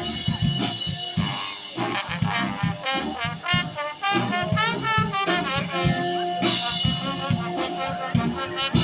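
Street brass band playing: several horns with wavering held notes over a steady drum beat.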